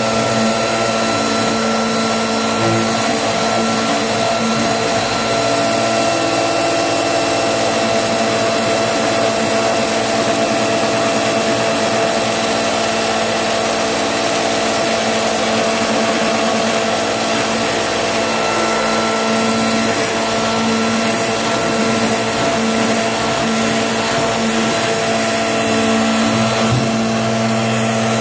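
A small motor running steadily: a loud, even whirring drone with a constant hum that does not change.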